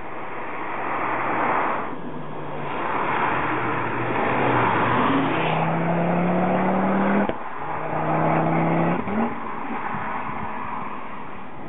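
Ford Focus RS Mk2's turbocharged 2.5-litre five-cylinder engine under hard acceleration, its pitch climbing, cutting off abruptly about seven seconds in, then climbing again briefly, over a steady rush of road and wind noise.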